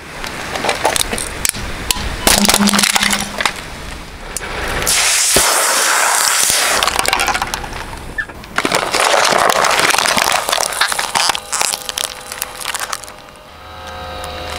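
Car tyre rolling over and crushing hard plastic and packaging: a string of sharp cracks, snaps and crunches, with longer stretches of crunching and crackling.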